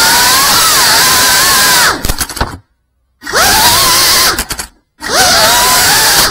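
GEPRC Mark 5 FPV quadcopter's motors and propellers running loud, with a whine that glides up and down with the throttle. The sound cuts out completely twice, about two and a half seconds in and again just before five seconds, and surges back each time as the throttle is cut and brought back in.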